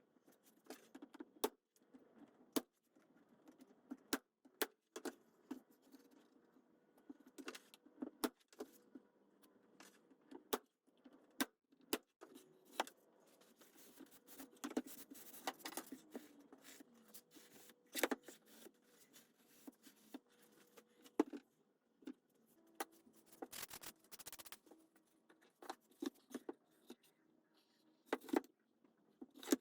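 Scattered sharp clicks and light knocks at irregular intervals, with short scraping stretches, from small plywood and hardwood birdhouse parts being handled and fitted together; a faint steady hum underneath.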